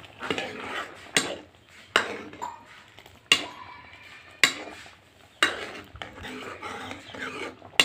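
Metal ladle stirring a watery mango curry in a metal kadhai. It scrapes through the liquid and clinks sharply against the pan's side about six times, roughly once a second.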